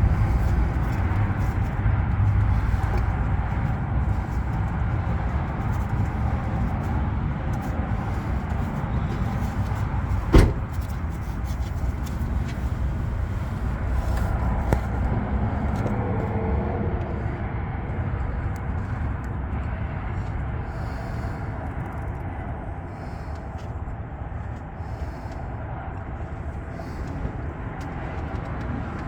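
Steady low vehicle rumble that slowly fades, with one sharp click about ten seconds in.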